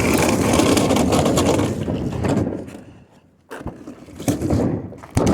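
Old refrigerator rolled across the floor on its small wheels, a continuous rumbling scrape that stops about two and a half seconds in, followed by a few knocks.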